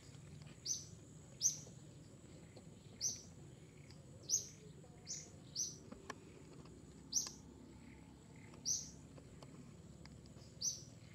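A bird calling over and over: short, high chirps that fall in pitch, about one a second, some in quick pairs, over a faint steady high tone.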